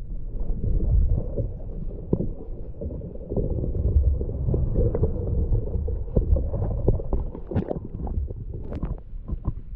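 Muffled low rumble and gurgle of river water picked up by a camera held underwater, with scattered small clicks and knocks that come more often near the end.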